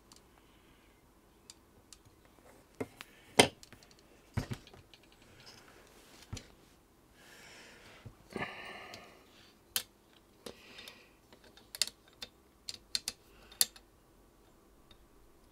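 Scattered clicks and knocks of plastic and metal parts being handled: the Commodore 8050 disk drive's removed front panel and its disk-door latch mechanism worked by hand. A sharper knock comes about three seconds in, a short rustle near the middle, then a run of small clicks.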